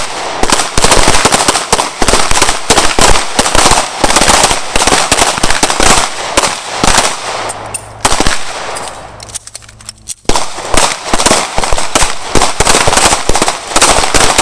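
Several semi-automatic pistols firing at once along a shooting line: a dense, rapid string of overlapping shots. It thins out briefly about nine seconds in, then picks up again.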